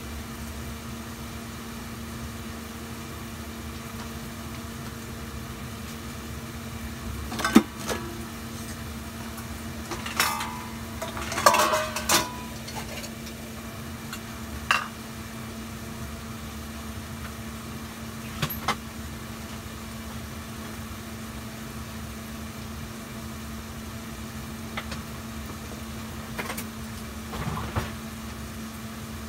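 A portable gas stove burning under a steel pot, a steady low hum. A few sharp clinks and knocks of kitchenware break in, most of them about a third of the way in and a couple near the end.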